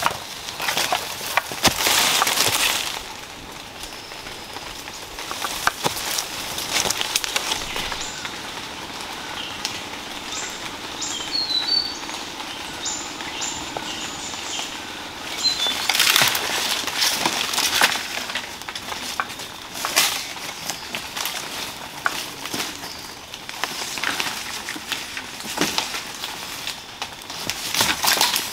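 Dry leaf litter and bamboo rustling and crunching underfoot and by hand in several bursts, loudest near the start and about halfway through. In the quieter stretch between, a few short high chirps.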